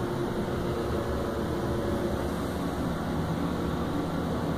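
Steady low hum and hiss inside a Thyssen hydraulic elevator car as it travels down.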